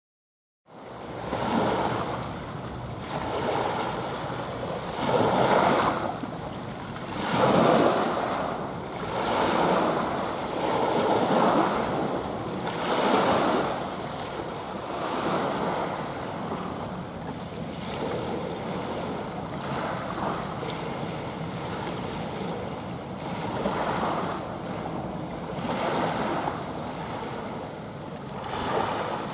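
Sea waves washing in, in surges every two seconds or so, with wind buffeting the microphone; the sound starts about a second in.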